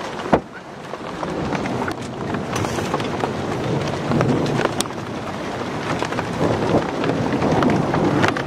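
Heavy rain falling in a thunderstorm, with a low rumble of thunder swelling through the middle and a few sharp knocks.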